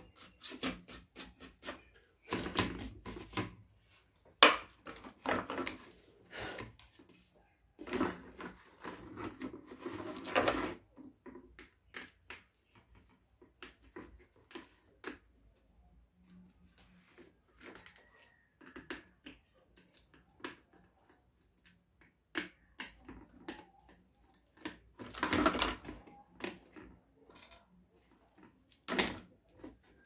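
Plastic casing halves of a kitchen weighing scale handled on a wooden workbench: irregular clicks and knocks, with a few stretches of scraping and rubbing.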